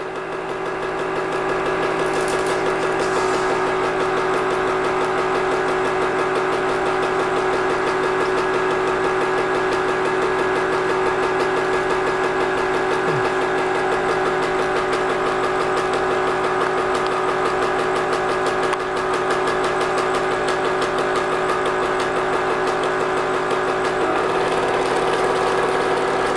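Home-movie film projector running: a steady motor hum with the rapid fluttering clatter of film through the gate. It rises to a steady level in the first second or so.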